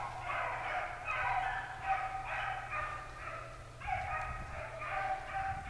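A pack of rabbit hounds baying in chorus while running a swamp rabbit, with drawn-out, overlapping calls about two a second.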